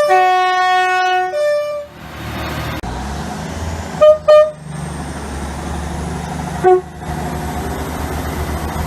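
Train two-tone horn: a long blast that steps from a low note up to a higher one, then two short toots on the high note about four seconds in, and another brief blast near the end, over the steady low running noise of the train.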